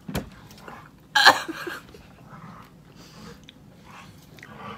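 People chewing jelly beans, with small mouth noises and a short disgusted vocal noise about a second in.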